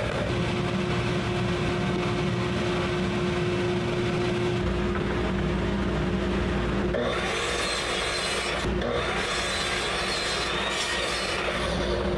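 Miter saw cutting through plywood: a steady motor whine under the rasp of the blade in the wood. About seven seconds in, the cutting sound turns brighter and hissier.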